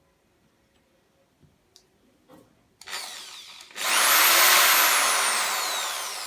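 Electric drill running: a few light clicks, then the motor starts about three seconds in, speeds up to full speed with a high whine, and then slowly winds down, the whine falling in pitch.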